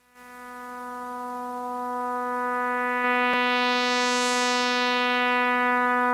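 A single sustained musical drone note with a rich, bright tone, fading in over about three seconds and then holding steady, its brightness swelling toward the middle: the opening swell of the soundtrack music.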